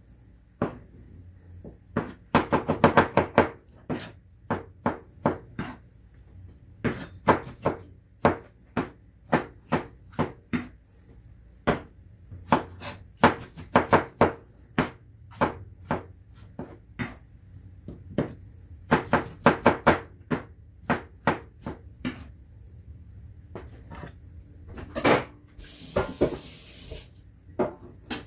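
Kitchen knife chopping tomatoes and green onions on a wooden cutting board: sharp knocks, sometimes in fast runs, with pauses between. Near the end there is a short scraping noise.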